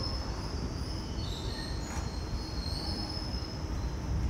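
Passenger express train rolling out of a station at low speed, heard from aboard beside the coach: a steady low rumble from the wheels and running gear, with thin high-pitched wheel squeals coming and going over it.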